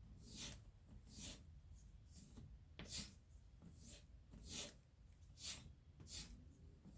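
An Asher Nomad knife blade being drawn across a strop, a faint soft swish on each pass, roughly one a second. The dull edge is being stropped to refine it.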